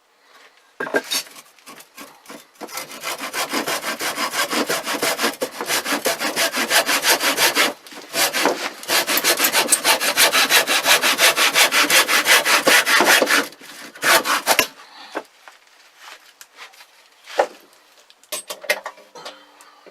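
Hand saw cutting through a piece of 2-by-1 wood in quick, even strokes, with a short pause about halfway through. The sawing stops and is followed by a few knocks as the wood is handled.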